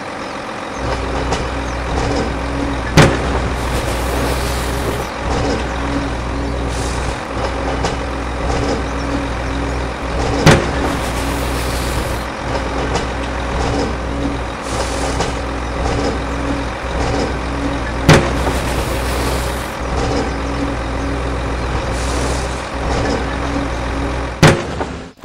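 Heavy vehicle engine, like a truck or tractor, running steadily with a deep hum, broken by a sharp click every seven or eight seconds, four in all.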